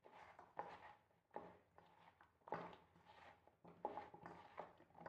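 Faint, irregular soft rustles and pats of a hand tossing cut potato fingers through dry maida and rice flour in a steel mixing bowl.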